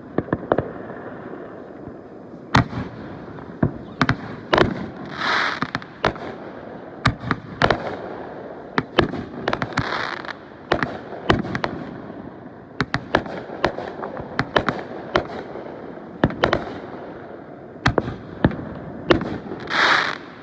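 Fireworks going off in a fast, irregular string of sharp bangs, with a few longer crackling hisses mixed in, about five seconds in, about ten seconds in and near the end.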